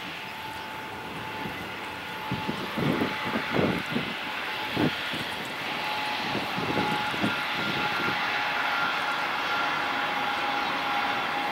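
Distant steady engine rumble and hiss with a faint held tone, growing a little louder in the second half. Wind buffets the microphone in low thumps during the first few seconds.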